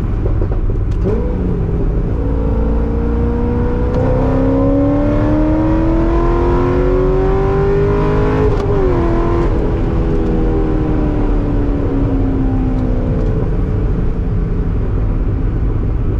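A 2008 Corvette Z06's 7.0-litre LS7 V8 is pulling hard under acceleration, heard from inside the cabin. Its pitch climbs steadily for about seven seconds, drops at an upshift, then falls slowly as the car eases off.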